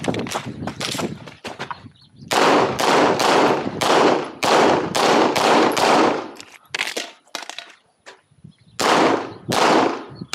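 Red-dot semi-automatic pistol fired in a rapid string, about three shots a second, starting about two seconds in after a few fainter knocks. The shooting pauses for about a second and a half near seven seconds, then a few more quick shots follow.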